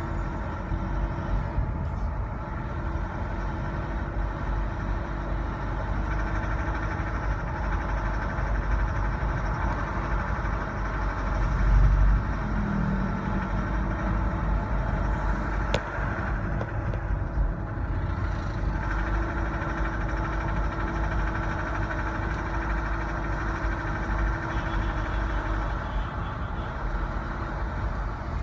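Cabin noise of a 2015 Mitsubishi Strada pickup driving uphill at about 40 kph and 1500 rpm: a steady engine and road rumble. This is the condition in which the owner hears a knocking noise that is absent at idle and at other speeds, with a brief louder surge about halfway through.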